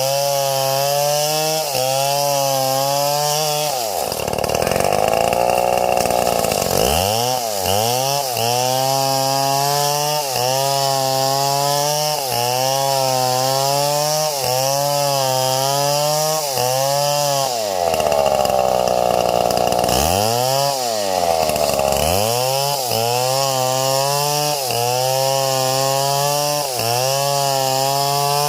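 Chainsaw running at high revs while cutting palm wood, its pitch wavering up and down about twice a second as the chain works through the cut. Twice, around four seconds in and again near eighteen seconds, the revs sag and then climb back up.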